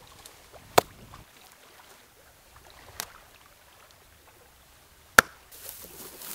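A lump of wet clay slapped by hand: three sharp slaps a couple of seconds apart, the last the loudest. Near the end, dry grass rustles as it is handled.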